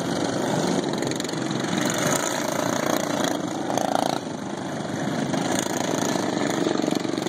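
Racing lawn mowers' single-cylinder engines running as they lap the track, a steady engine drone.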